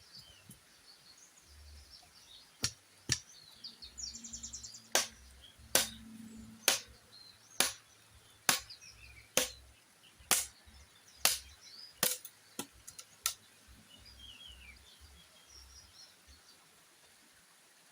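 A dozen sharp strikes of a tool on bamboo, about one a second, stopping a few seconds before the end. Faint birdsong runs behind them.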